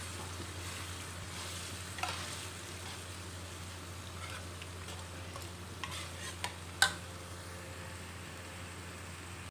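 Ground meat and mushroom sauce simmering and sizzling in a stainless steel wok as it is reduced to thicken, while a metal spatula stirs through it. A few sharp clinks of the spatula against the wok, the loudest about two-thirds of the way through.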